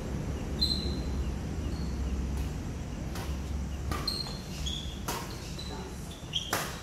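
Badminton rally: rackets strike the shuttlecock about once a second, with the sharpest hit near the end. Short high squeaks come between hits over a low steady hum.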